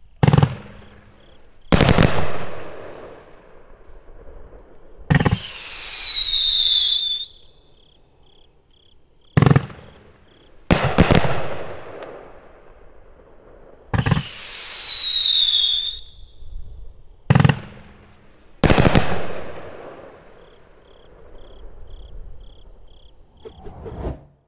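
World Class 'Back The Blue' 500g 25-shot finale cake firing: sharp reports coming in twos, several with a tail fading over a second or two. Twice, about five and fourteen seconds in, a loud whistle sounds for about two seconds, falling in pitch.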